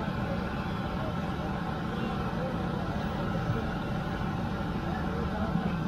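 Busy street-stall ambience: a steady low rumble with a murmur of voices, over oil bubbling in a large karahi as potato slices and pakoras fry.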